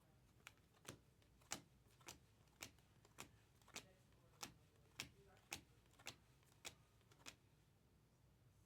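Trading cards being flipped one at a time off a stack, a light click about twice a second, stopping about seven seconds in.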